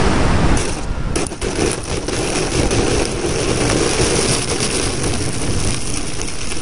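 Wind rushing over the microphone of a camera carried on a Ranger EX RC plane. The rush drops about half a second in, a few sharp knocks follow, and then a steady noisy hum.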